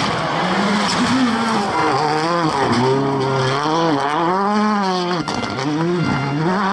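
Rally car engine revving hard, its pitch climbing and dropping several times as the throttle is worked, over the noise of tyres sliding on loose gravel.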